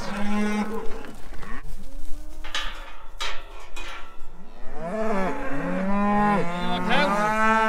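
Several cattle mooing, one call after another and then many overlapping at once toward the end, with a few sharp knocks around the middle.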